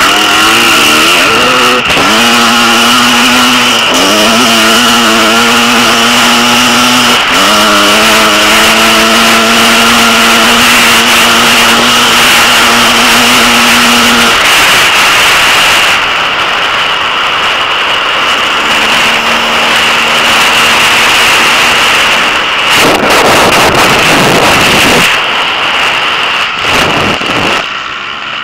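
Off-road motorcycle engine heard from an onboard camera, revving up hard. Its pitch climbs and drops back three times in the first seven seconds as it shifts up, then holds steady. In the second half the engine is fainter under a loud rushing noise, with heavy surges near the end.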